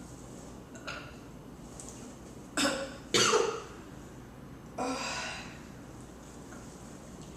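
Four short sudden bursts from a woman's throat as she eats and drinks soda: a faint one about a second in, two loud ones close together around three seconds in, and a last one near five seconds.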